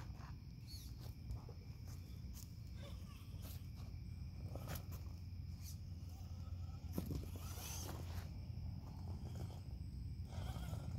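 Faint scattered crunches and scuffs on loose dirt and leaf litter, over a steady faint high tone. The scuffing grows louder about seven seconds in and again near the end.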